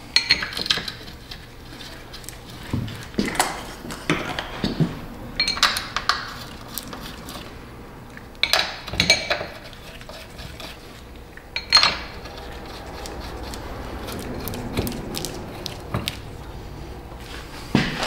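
Metal clinks and clicks from the hydraulic oil tank's cap and filter hardware being fitted and turned by hand. They come in short bursts a few seconds apart, with one sharp click about twelve seconds in.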